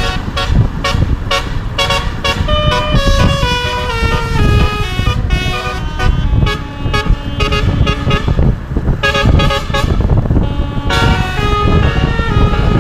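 Bus telolet air horn, a roof-mounted set of many trumpets, playing a fast melody of quickly changing notes with brief breaks, over a low rumble.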